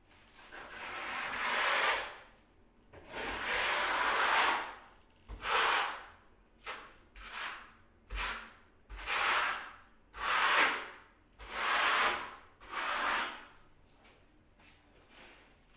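A hand tool scraping against a wall surface in a series of about a dozen strokes, the first few long and drawn out, the later ones shorter and quicker, stopping shortly before the end.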